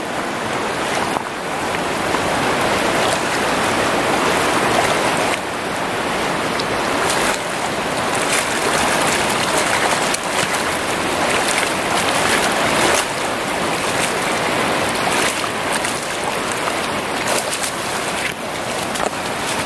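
Rain-swollen river water rushing over a shallow riffle, with brief splashes as a hooked steelhead thrashes at the surface.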